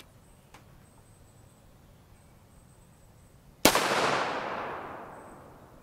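A single 9mm shot from a CZ Scorpion EVO 3 S1 short-barrelled rifle, firing a tungsten-core DM91 round, about three and a half seconds in. The shot is sharp and loud, with a long echo that dies away over about two seconds.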